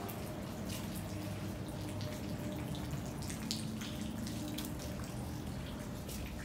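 Water dripping in many irregular, close-spaced drops over a low steady rumble.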